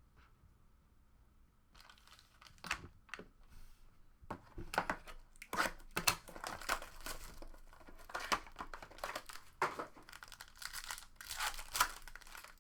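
Trading-card packaging being torn open and crinkled: a quiet start, then about ten seconds of repeated rustling and tearing strokes.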